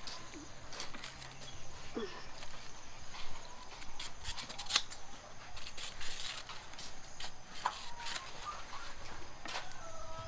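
Chickens clucking in the background, with short calls about eight seconds in and again near the end, amid scattered light clicks and taps.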